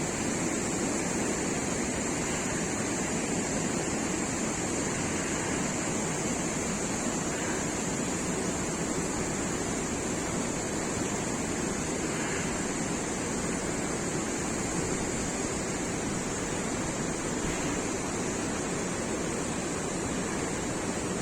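River water rushing steadily, an even, unbroken noise with a steady high hiss over it.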